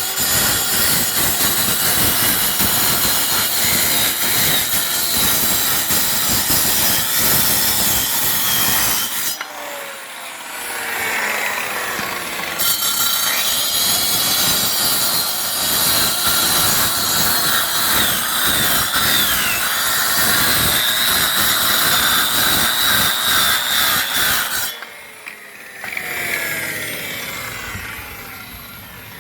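Electric concrete saw cutting into a concrete slab with a loud, steady grinding. About nine seconds in it is switched off and its pitch falls as the blade coasts down; it starts again about three seconds later for a second long cut, and near the end it is switched off and winds down again.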